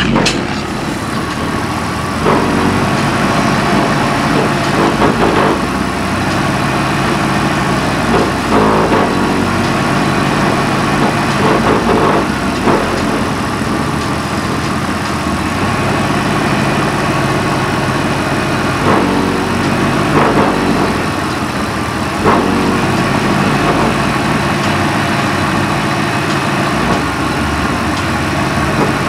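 Lincoln Town Car engine idling steadily, with a few brief knocks scattered through.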